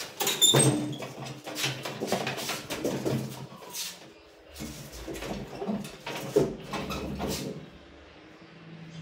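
Gypsum board on a drywall panel lift being pushed along the metal ceiling framing: irregular scraping, rubbing and knocks, with a few brief squeaks near the start.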